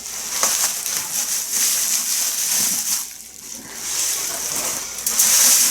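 Bubble wrap and cardboard packing rustling and scraping as a heavy elevator panel is lifted out of its box, loudest near the end.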